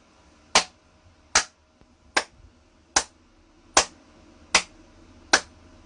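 A person clapping hands in a slow, even rhythm: seven sharp claps, a little more than one a second.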